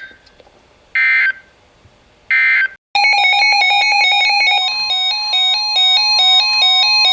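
Emergency Alert System end-of-message code: short, screechy digital data bursts about a second and a half apart, signalling that the alert is over. About three seconds in, bright chiming music with a quick repeating figure starts and keeps playing.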